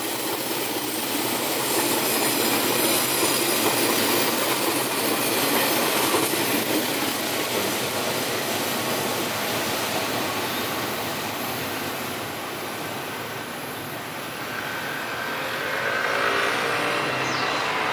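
Passenger coaches of a Taiwan Railways train passing close by, a steady rush and rumble of steel wheels on the rails. It is loudest a few seconds in, then eases as the last cars run away down the line. Near the end a second noise swells up.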